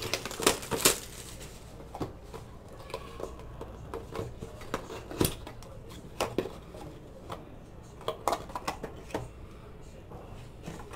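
Cardboard hobby box being opened and a hard plastic card case slid out and handled: scattered light clicks, taps and rustles.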